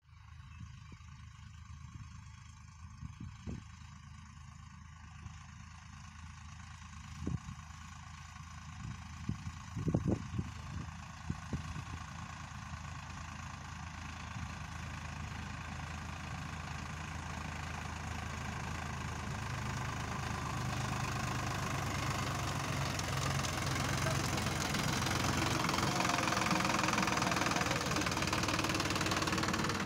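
Sonalika 734 tractor's diesel engine running steadily under load as it pulls a nine-tine cultivator in third low gear at slow speed, growing steadily louder as it approaches and passes close by near the end. A few short knocks sound in the first ten seconds.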